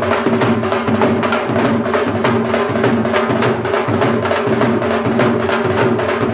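Two Punjabi dhol drums played together with sticks, a fast, steady rhythm of sharp strokes over a steady pitched hum.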